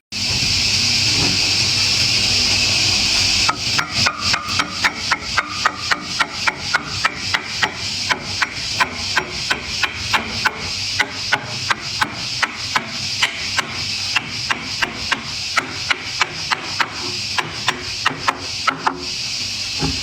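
After a few seconds of steady hiss, a hammer strikes over and over at about three blows a second, driving a wooden altar-table top into its mortise-and-tenon joint.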